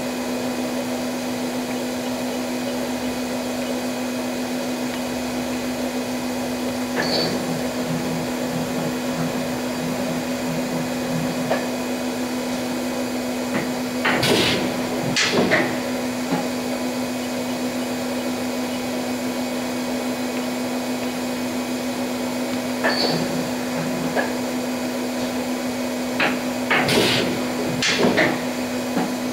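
Daewoo DMV-500 CNC vertical machining center running with a steady hum, broken every several seconds by short clusters of mechanical clunks and clicks from its moving parts.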